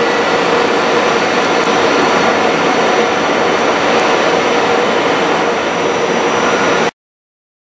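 Steady rushing hum of an FS Class E464 electric locomotive's cooling blowers running as it stands idle, with a faint steady tone in it. It cuts off suddenly about seven seconds in.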